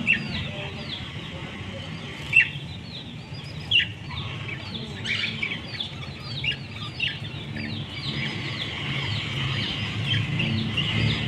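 Pet parrots chirping and chattering: a dense run of short, quick, falling chirps, several a second, with a few louder sharp calls in the first few seconds.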